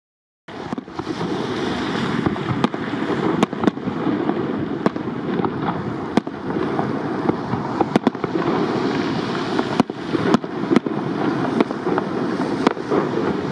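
Fireworks display: a dozen or so sharp shell bangs at irregular intervals over a steady rushing noise.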